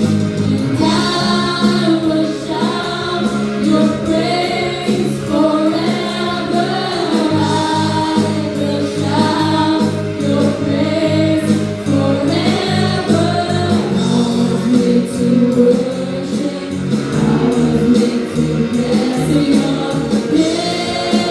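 A group of young voices singing a contemporary worship song together over a band accompaniment.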